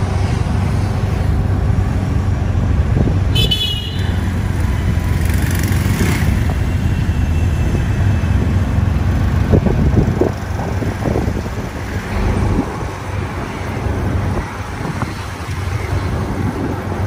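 Motorised rickshaw's small engine running and road noise, heard from the passenger seat in city traffic, with a short vehicle horn toot about three and a half seconds in.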